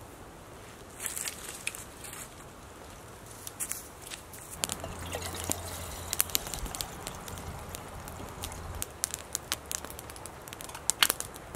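Campfire crackling, with scattered sharp pops of burning wood.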